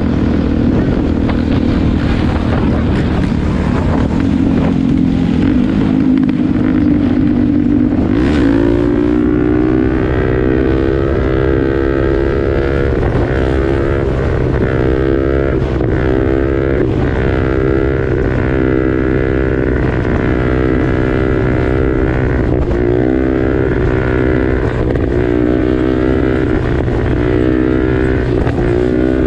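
Motorcycle engine running at road speed, with wind on the microphone. About eight seconds in, the engine note changes, and from then on its pitch rises and falls over and over, about once a second.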